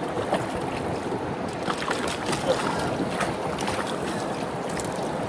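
Steady wash of river water against a boat, mixed with wind buffeting the microphone, with a few faint scattered clicks.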